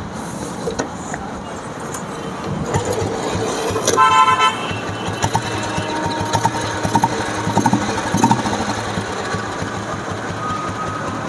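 Royal Enfield Bullet motorcycle's electric horn giving one short toot about four seconds in, over the bike's single-cylinder engine running with an even beat.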